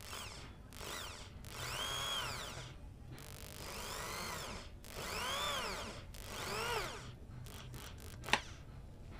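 Corded electric drill boring a hole through thin brass sheet, run in a series of bursts, its whine rising as the trigger is squeezed and falling as it is let go. Near the end come a few short ticks and one sharp click.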